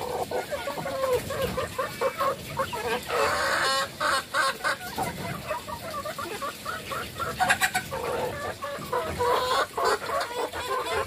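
A flock of chickens clucking busily as they crowd in to peck black soldier fly larvae, with a couple of short scratchy scuffles about three and seven seconds in.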